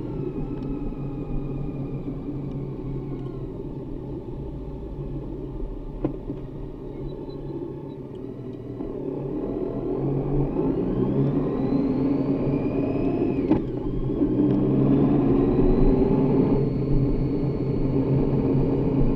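Honda Gold Wing motorcycle's engine and wind noise from the rider's seat, easing off for a while and then accelerating from about halfway, the engine pitch rising and the sound growing louder. A sharp click partway through the acceleration.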